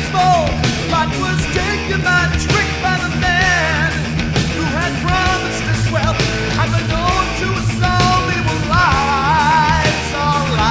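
Rock music with a singer who holds wavering, vibrato notes over a steady drum beat, bass and guitars.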